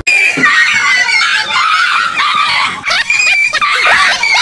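A frightened dog yelping and squealing shrilly, breaking into a quick run of short yelps and barks toward the end.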